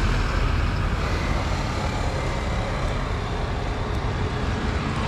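Motor vehicle running steadily, a continuous low rumble with a hiss over it.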